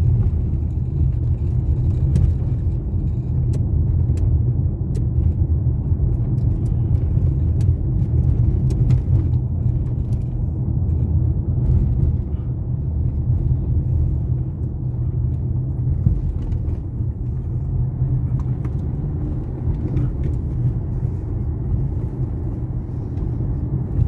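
Car driving along a road, heard from inside the cabin: a steady low rumble of engine and tyres.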